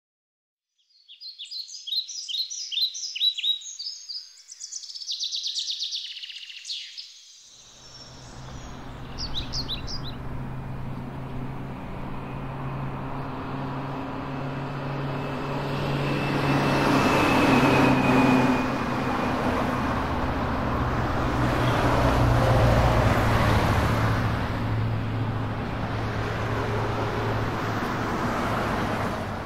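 Birds chirping for the first several seconds, then road traffic sets in suddenly: a steady wash of car engine hum and road noise that grows louder about halfway through.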